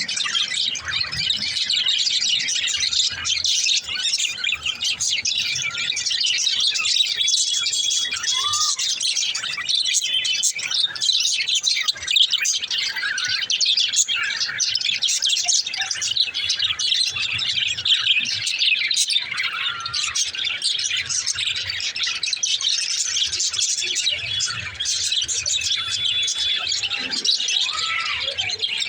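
Small green parrots chirping and chattering nonstop, a dense stream of quick high chirps with a few short squawks.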